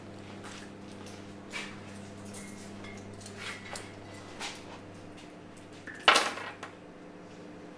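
A hand setting something down on a wooden shop counter with a loud, sharp clink-and-clatter about six seconds in, after a few faint taps and clicks, over a steady low hum.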